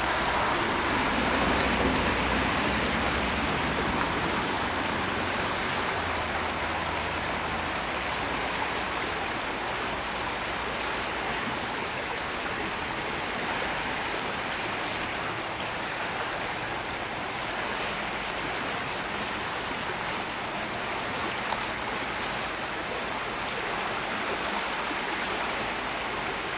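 Steady rushing of the Wallkill River in flood, running high and fast.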